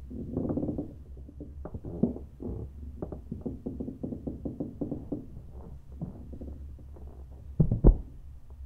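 A steady low hum with a scattered run of soft knocks and creaks, then a much louder double thump near the end.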